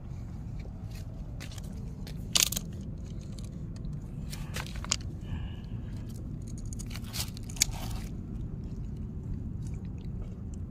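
Freshly caught fish being handled and shifted on rocks: scraping and rustling with a few sharp knocks, the loudest about two and a half seconds in, over a steady low rumble.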